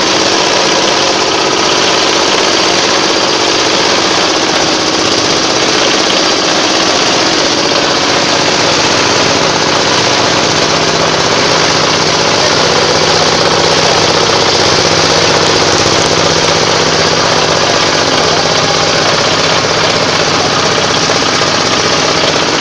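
Organic compost grinder (shredder) machine running, a loud, steady mechanical drone that does not let up.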